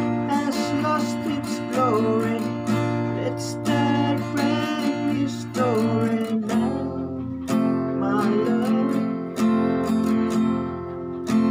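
Steel-string acoustic guitar strummed in a steady repeating pattern at a slowed tempo, with the chords changing; the bass shifts to a new chord about halfway through.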